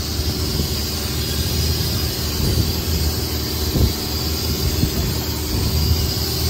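Longtail boat's engine running steadily at speed, a low drone with water and wind rushing past the hull. One sharp thump a little over halfway through.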